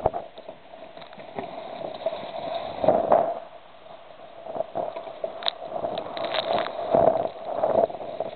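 Water splashing and gurgling along the hull of a small sailboat under way, with wind on the microphone rising and falling in gusts and a few sharp knocks about two thirds of the way through.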